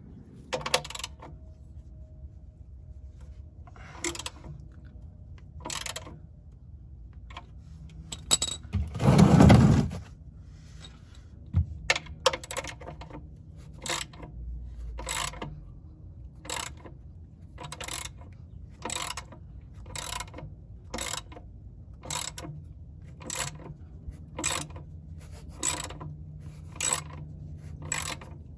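Sharp mechanical clicks repeating steadily about once a second, with a loud rush of noise lasting about a second near ten seconds in.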